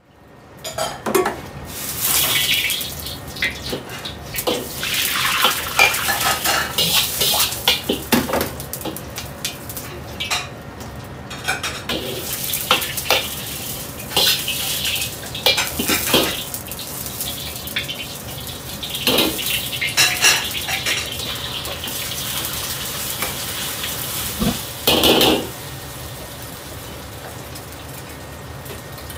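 Metal ladle clanking and scraping in a carbon-steel wok over a steady hissing gas wok burner while the wok is heated and oiled. Near the end there is a louder burst as beaten egg goes into the hot oil and sizzles.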